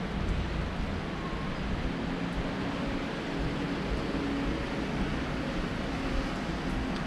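Steady outdoor background noise, mostly a fluctuating low rumble like wind on the microphone, with a faint hum underneath.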